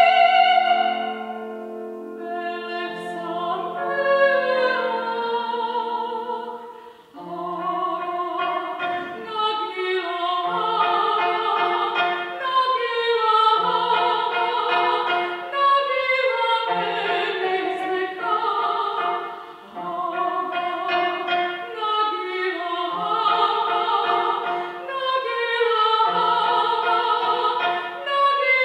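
Operatic soprano singing with cimbalom accompaniment. A long held note opens; from about seven seconds in, the cimbalom plays a repeating rhythmic figure of quick hammered strokes under the sung phrases.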